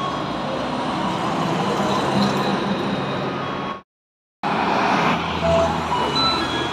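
Busy road traffic at an intersection: cars, trucks, a bus and scooters running past in a steady wash of engine and tyre noise. The sound cuts to silence for about half a second midway, and faint short electronic melody notes come in near the end.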